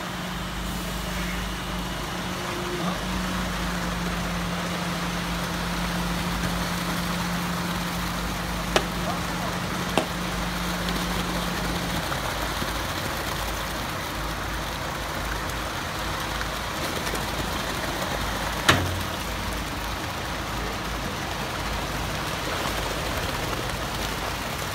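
Concrete mixer truck running as wet concrete pours down its chute, a steady rushing noise with a low hum that stops about halfway through. Three sharp knocks stand out, two close together and one later.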